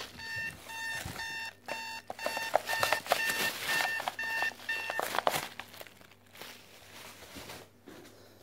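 Digital alarm clock beeping about twice a second as its wake-up alarm goes off, with handling noise as it is held. The beeping stops about five seconds in.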